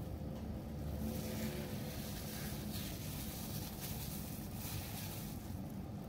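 Steady low rumble of a gas stove burner heating a pot of water, with a few faint soft ticks from a metal spoon as meatball paste is scooped and dropped in.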